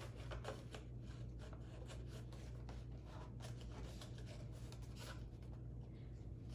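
Faint scratching and ticking of a flexible plastic card being worked into the gap between the glass and the plastic lip of a Subaru WRX/STi door mirror housing, prying the glass loose from its factory double-sided tape. A steady low hum runs underneath.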